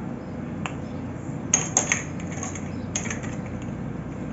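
Small glass seasoning jars being handled and shaken over a plastic bowl: sharp clicks and clinks, a single one early, then clusters about one and a half and three seconds in, over steady low background noise.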